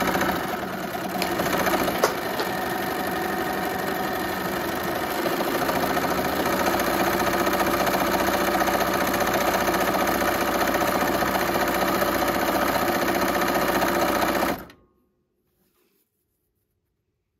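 Bernina electric sewing machine running steadily at speed, stitching a decorative flower stitch through layered fabric and lace strips. It stops abruptly about fourteen and a half seconds in.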